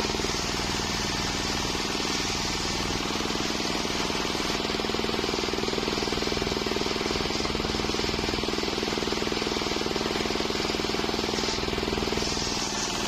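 Homemade circular sawmill running steadily, its engine drive pulsing rapidly under a high hissing whine as it saws waru wood into boards.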